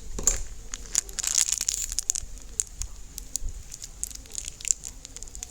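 Slime being squeezed and stretched by hand, giving sticky clicks and crackles that come thick in the first couple of seconds and then thin out.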